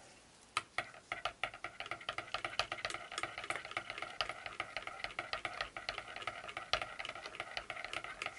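A metal spoon stirring thick soap batter in a glass measuring cup, mixing in the colour, clinking and scraping against the glass in quick, rapid strokes, starting about half a second in.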